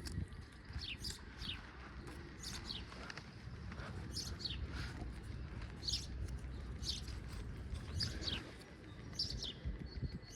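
Birds chirping: short, high notes that slide downward, often in pairs, repeating every second or so over a low rumble.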